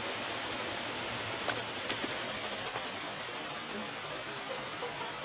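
Small waterfall and stream rushing steadily over rock, with a couple of faint ticks about one and a half to two seconds in.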